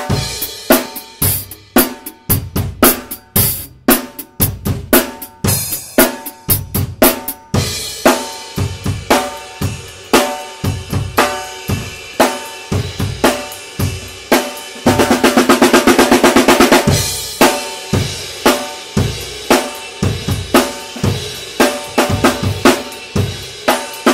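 Mapex MPX 14x6.5-inch steel snare drum played acoustically in a groove, with low bass-drum thuds under many of the hits. The first seven seconds or so bring sharp, bright, ringing strikes, and a fast, even roll lasts about two seconds just past the middle.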